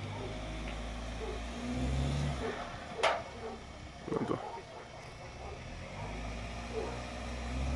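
SEAT SUV engine running at low revs as it crawls over a wooden plank ramp, swelling about two seconds in and again near the end. A single sharp knock comes about three seconds in, and a short clatter follows a second later.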